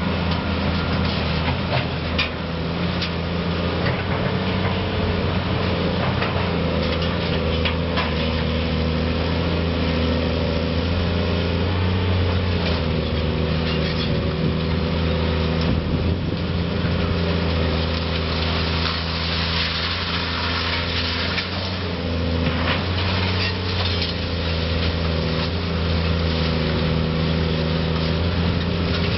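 Caterpillar 330C hydraulic excavator's diesel engine running steadily under working load, its pitch shifting slightly as the hydraulics work, with scattered knocks and clatter of concrete rubble as the bucket digs and dumps.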